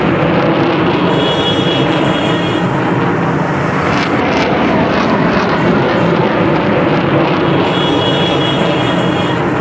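Jet engines of a nine-aircraft formation of BAE Hawk trainers passing overhead: a loud, steady roar.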